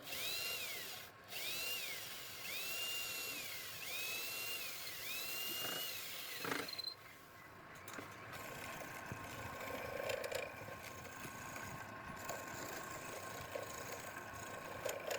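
A power tool's motor whining in about five short spurts over the first six seconds, each rising then falling in pitch as it spins up and slows, then running more steadily.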